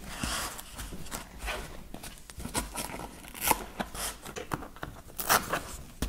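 Hands fitting a foam landing skid onto a drone's plastic arms and fastening a velcro strap: scattered small clicks, scrapes and short scratchy rasps.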